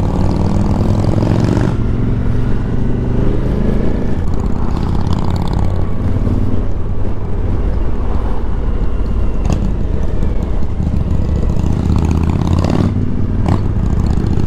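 Motorcycle engine running at easy road speed, its pitch rising and falling a little with the throttle, under a steady rush of wind on the on-board microphone.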